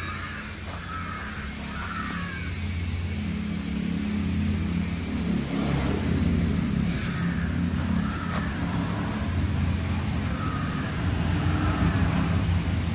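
Mahindra 475 DI tractor's four-cylinder diesel engine idling steadily, a low even chug that grows a little louder about four seconds in.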